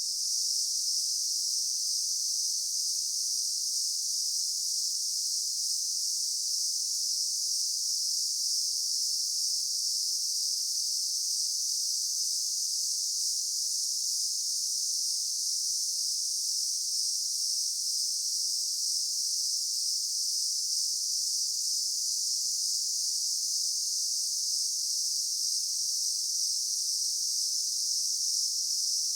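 Daytime insect chorus: many insects making one dense, steady, high-pitched drone that never breaks or changes.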